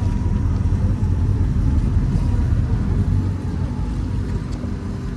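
Engines of a large motor yacht running with a steady low rumble while it manoeuvres to dock.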